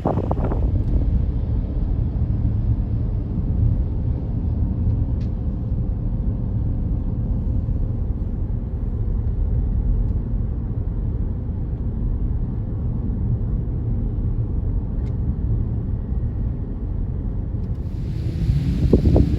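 Jet ski engine running steadily, a low rumble with a faint even tone, mixed with wind noise on the microphone.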